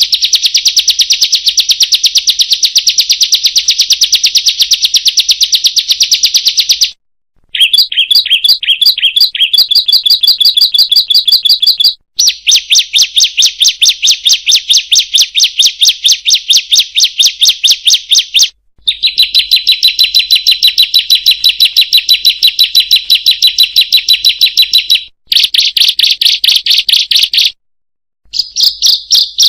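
Ciblek (bar-winged prinia) singing its rapid 'kriek-kriek-kriek' song: long runs of fast, sharp, high-pitched notes repeated many times a second, in bouts of a few seconds each, broken by brief pauses.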